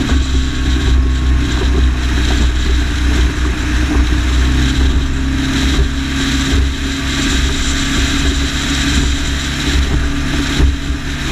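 Motorboat engine running steadily at speed, with wind rumbling on the microphone.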